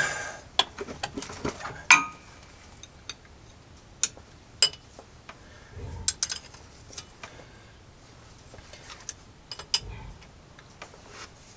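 Scattered sharp metallic clicks and clinks of hand tools being handled, a dozen or so irregular strikes with quiet between them.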